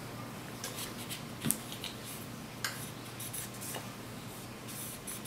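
Cloth cleaning patch rubbing over a Sig pistol's metal slide as solvent is wiped off: soft scuffing and scraping, with a few light clicks and knocks of the slide in the hands, the sharpest about a second and a half in.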